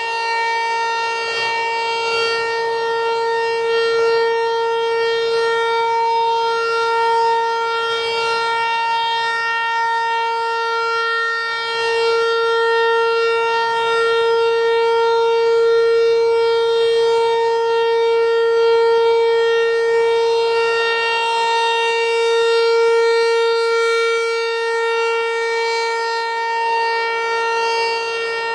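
Federal Signal 508 outdoor warning siren sounding a steady test wail, holding one pitch, its loudness swelling and fading slowly.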